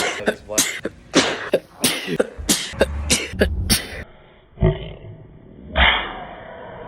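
A man sneezing: a run of short, sharp bursts, then, in a duller-sounding recording, a short burst followed about a second later by a louder sneeze that trails off.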